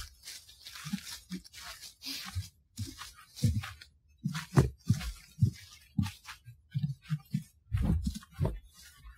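Heavily noise-reduced outdoor field recording: an irregular string of short, low thumps and crackly hiss bursts, several a second, which the uploader presents as Sasquatch sounds.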